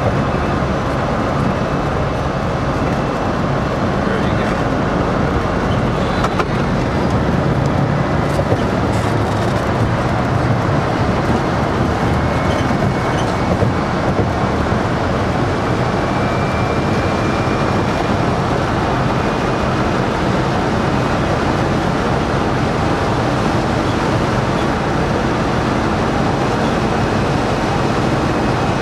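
Steady road and wind noise inside the cabin of a 1965 VW Beetle converted to 96-volt DC electric drive, cruising at highway speed with no engine running.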